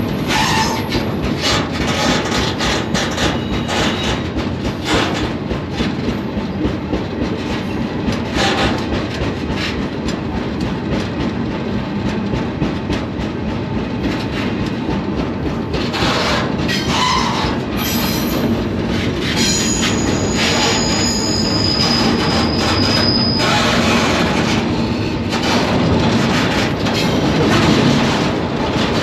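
Freight train rolling, heard from aboard a car: a steady rumble with repeated clanks of wheels and couplers, and a brief high wheel squeal about two-thirds of the way through.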